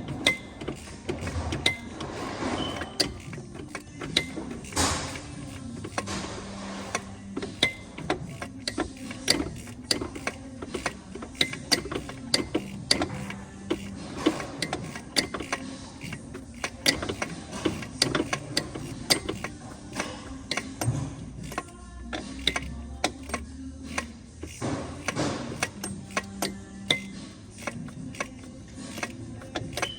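Hand ratchet clicking and metal tools clinking in quick, irregular strokes while the alternator's mounting bolts are worked in, with faint background music under it.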